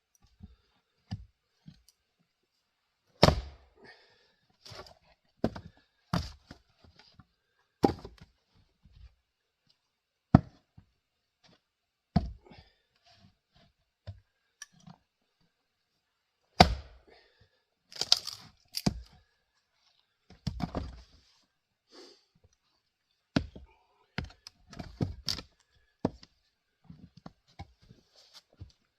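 Jersey-pattern four-pound axe splitting grand fir rounds: a dozen or so sharp cracking strikes, irregularly spaced every one to three seconds, some followed by smaller knocks as the split pieces fall.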